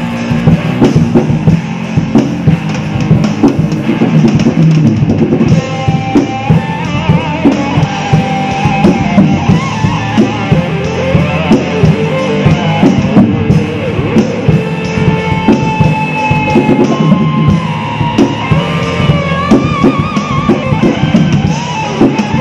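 Tama drum kit played fast and busy in a rock style along to a backing track. A wavering lead guitar melody comes in over the drums about five seconds in.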